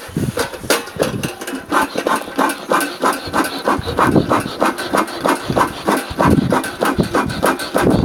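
Beekeeper's bellows smoker pumped quickly, giving a fast, even run of breathy puffs as it blows air into glowing charcoal to fan the fire hotter.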